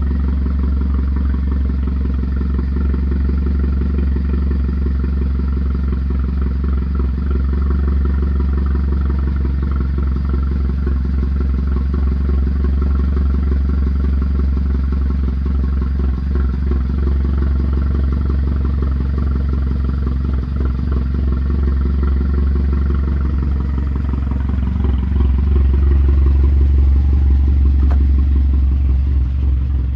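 2013 Hyundai Veloster Turbo's turbocharged four-cylinder engine running steadily, rising a little in level near the end; the owner takes the turbo to be bad.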